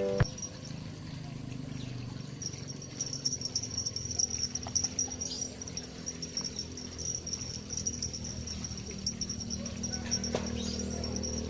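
Insect trilling, a steady high-pitched buzz that starts about two seconds in, over a faint low background hum.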